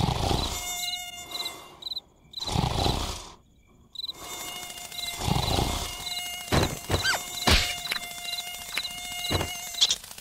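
Cartoon mosquito whining with a steady high hum that breaks off and comes back. Crickets chirp in even pulses about twice a second behind it. A few slow swells of noise and some sharp ticks come and go.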